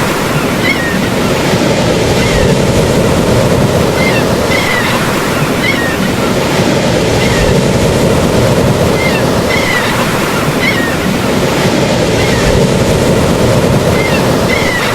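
Steady ocean surf washing, a continuous rushing noise. Clusters of short high chirps recur about every four to five seconds.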